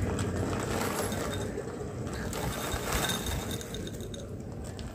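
Crispy fried sev poured from a plastic bag into a glass bowl: a dense rattle of dry pieces clinking on the glass, with the bag rustling. It thins out toward the end as the bowl fills.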